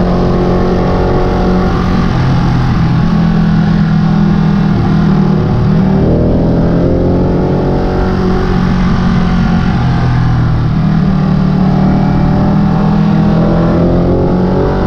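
Sport motorcycle's engine heard from onboard while riding a twisty road, its pitch rising with the throttle about six seconds in and again near the end.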